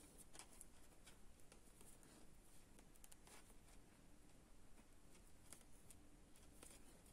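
Faint, irregular clicks of thin metal knitting needles and the light rustle of fine yarn as stitches are worked, over near silence.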